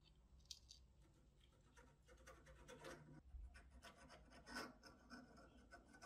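Faint, irregular scratching and rubbing with scattered small clicks, from hand work on an old rusty fishing reel.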